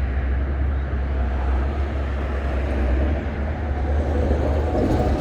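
Steady, loud low rumble of vehicle traffic, with no distinct strokes or changes.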